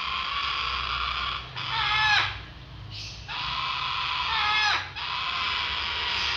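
Baby parrot chicks giving raspy begging calls while being fed by syringe. The calls come in runs of about a second and a half, each ending in a falling squawk, with a short pause about two seconds in.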